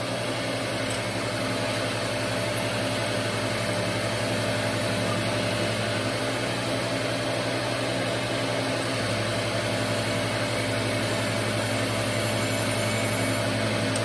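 Surface grinder running steadily, its spinning wheel being trued by a diamond dresser as the table traverses, with a faint ringing where the diamond makes contact with the wheel. The steady, even ring is the sign of the diamond cutting across the full face of the wheel.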